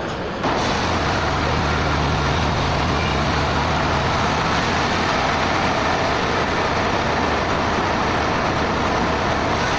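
A heavy engine running steadily under loud, even machine noise, typical of sawmill machinery; the sound jumps louder about half a second in and then holds.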